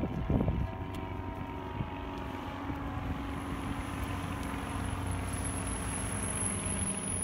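A steady engine drone with a low hum, with a brief louder burst about a third of a second in. A faint high whine joins about halfway through.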